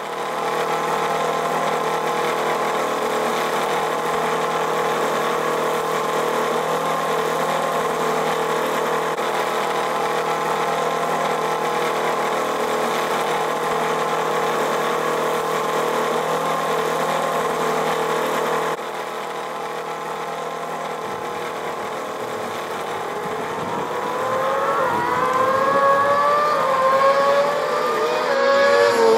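Racing motorcycle engine running steadily at idle. After a cut, a motorcycle accelerates on track, its pitch rising in steps through the gears, then falling as it passes near the end.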